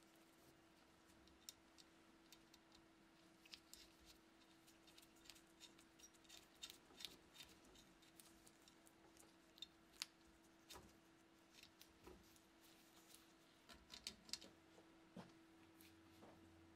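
Faint, scattered clicks and light taps from gloved hands handling a bayonet's metal pommel, grip screw and wooden grip, over a faint steady hum.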